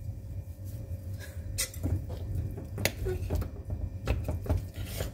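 A steel spoon mashing boiled toor dal and jackfruit seeds in a pressure cooker pot, with irregular clinks and scrapes of the spoon against the pot's metal sides.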